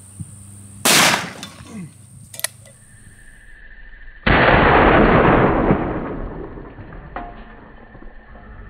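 .500 S&W Magnum revolver fired twice: a sharp blast about a second in, then a second blast about three seconds later that trails off over about two seconds.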